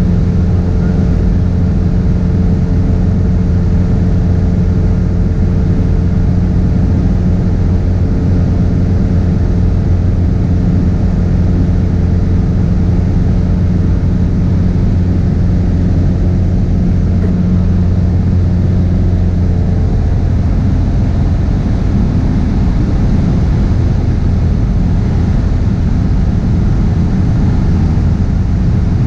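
Cessna 172SP's four-cylinder Lycoming piston engine and propeller in cruise flight, a steady loud drone heard from inside the cabin. Its low tone shifts slightly about twenty seconds in.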